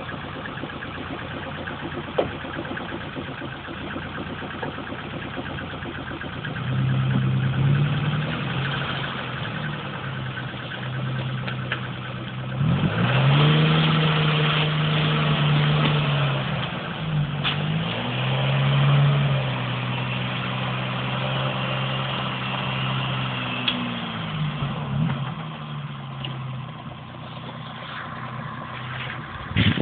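Unimog 404's six-cylinder petrol engine running just after starting: it idles at first, then is brought up to higher revs and let back down several times, settling back toward idle near the end.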